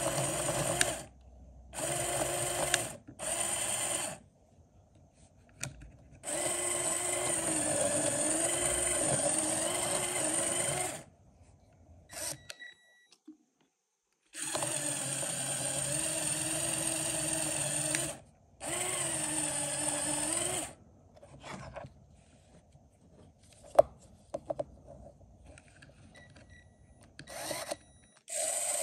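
LEGO Technic electric motor and plastic gear train whirring in start-stop bursts of a second to several seconds, the whine dipping in pitch for a moment during the longer runs as a hand holds one output wheel against it. Light clicks of plastic parts fill the pauses, with one sharp click in the middle of a long pause.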